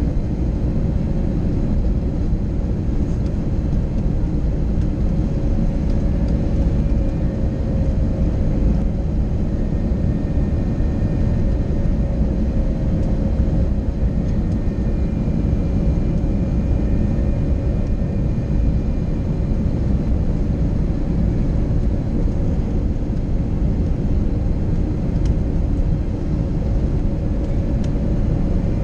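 Airbus A321neo cabin noise on final approach: a steady rush of airflow and its Pratt & Whitney PW1100G geared turbofan engines, with a faint droning tone underneath.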